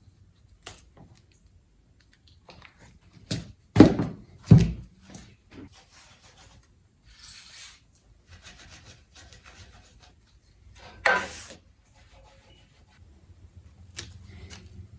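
Hand work noises: intermittent rubbing and scraping, with two heavy thumps about four seconds in, a short hiss near the middle and a louder scrape about eleven seconds in.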